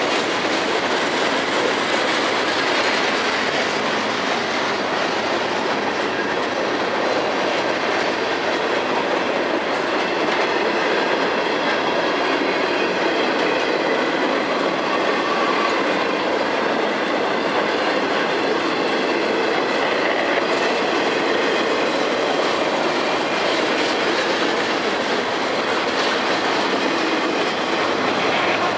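Freight train cars rolling past on the rails, a steady, continuous noise of wheels on track.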